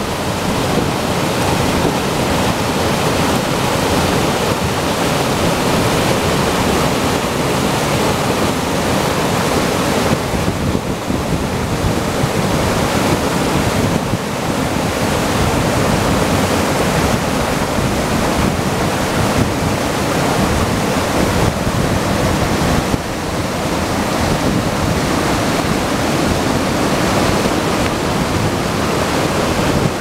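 Mountain waterfall cascading over rock ledges: a steady, loud rush and splash of falling water.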